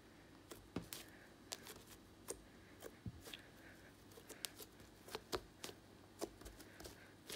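Overactivated pink slime being poked, pinched and squeezed by hand: faint, irregular sharp clicks and pops, roughly one or two a second, from stiff slime that has been overactivated.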